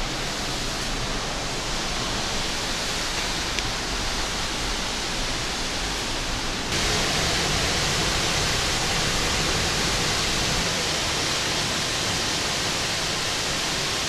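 Steady rushing of Marmore Falls, a tall man-made cascade with its controlled flow switched on. The rush grows louder and hissier about seven seconds in.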